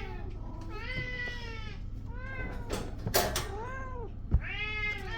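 Kittens meowing over and over, a string of short arched calls about one a second, with a brief knock about four seconds in.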